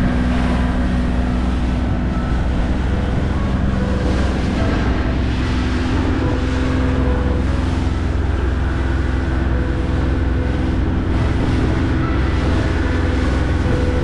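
Motorboat engine running steadily, with wind rushing over the microphone.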